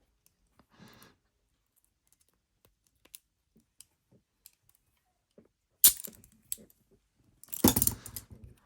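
Small metallic clicks and scrapes of a bobby pin being worked in a handcuff lock, with one sharp click about six seconds in and a louder clatter of metal clicks near the end.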